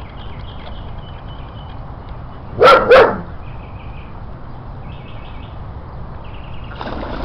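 A dog barks twice in quick succession about two and a half seconds in, over faint repeated high chirping.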